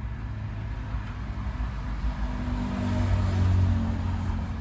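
A motor vehicle engine running steadily, growing louder about three seconds in and then easing off.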